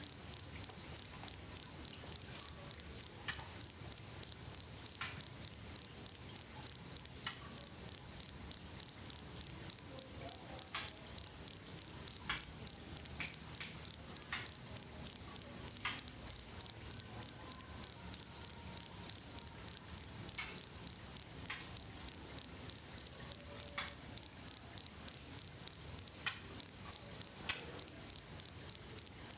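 Cricket chirping steadily, a high-pitched chirp repeated evenly about three times a second.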